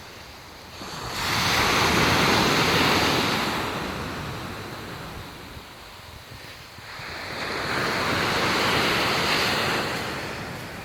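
Surf breaking on a beach: two waves that each build up, crash and wash back.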